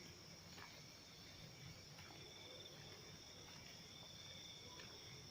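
Faint, steady chirring of night insects such as crickets, with a few soft ticks.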